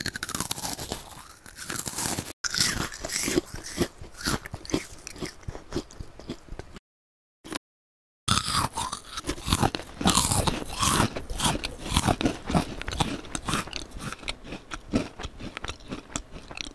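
Crisp meringue cookies being bitten and crunched: close-up eating sounds of dense, brittle crackling. It comes in two long bouts, with a pause of over a second near the middle.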